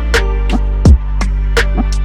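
Background music with a steady beat: deep drum hits and sharp percussive strikes over held chord notes.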